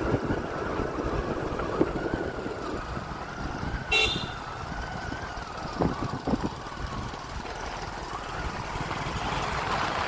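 Vehicle driving along a road, its engine and road noise running steadily with a faint whine, and a short high horn toot about four seconds in. A couple of brief low thumps come near six seconds.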